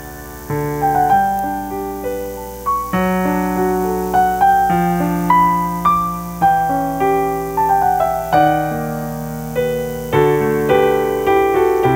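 Piano playing a slow, gentle piece: single melody notes struck about once a second over held lower chords, each note fading after it is struck.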